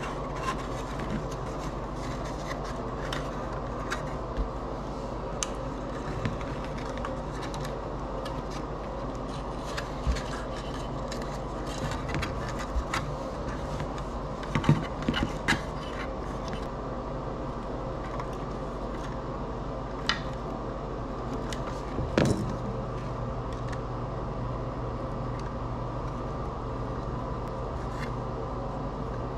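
Scattered small clicks, taps and scrapes of hands twisting wires together and handling a plastic solar post light housing, over a steady low hum. A cluster of sharper knocks comes about halfway through, and one more a little later.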